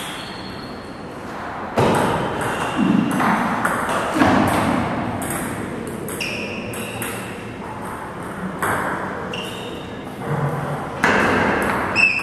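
Table tennis ball clicking off paddles and the table, a dozen or so sharp, ringing pings at irregular spacing, with some echo.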